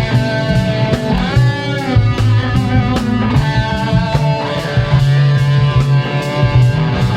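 Rock band playing an instrumental passage: electric guitar over a steady bass guitar line and drum kit beat. About a second in, a guitar note is bent up and back down.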